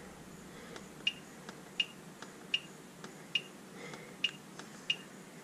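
Push buttons on a Dynamite Passport Ultra P2 battery charger clicking, with about six presses under a second apart, each answered by a short high beep as the program menu is stepped through.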